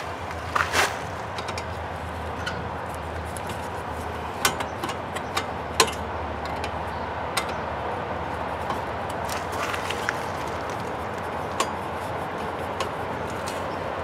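Scattered light clicks and taps of a small Phillips screwdriver working at the screw of an RV propane fridge's sheet-metal burner cover, over a steady low hum.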